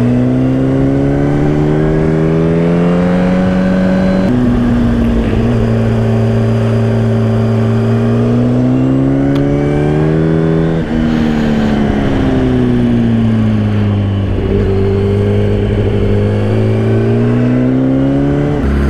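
Motorcycle engine under way, revs climbing in pitch. The pitch drops suddenly at a gear change about four seconds in and climbs again. It falls away for a few seconds after about eleven seconds, then climbs once more.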